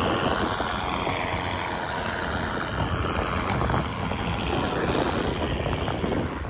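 A car passing close by on the road, its engine and tyre noise sweeping past, over a steady low rumble of road traffic.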